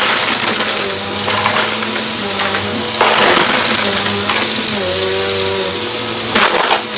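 Vacuum cleaner running loudly with a steady high hiss, its motor tone dipping and rising as the load changes, and brief crackles as crunchy debris is sucked up.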